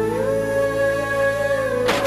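Dramatic background score: a held melody that slides between notes over a steady low drone, with one sharp crash just before the end.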